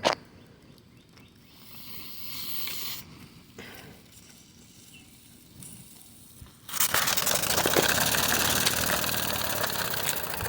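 Mamod Brunel live-steam model engine: a sharp click, then quiet, intermittent hissing. About seven seconds in, a loud, steady rush of steam starts, with a fast flutter of exhaust beats running through it.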